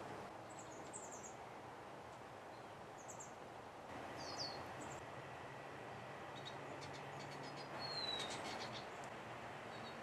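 Small songbirds chirping: scattered short, high single calls, then a short falling whistle with a quick run of faint ticks near the end, over a steady outdoor background hiss.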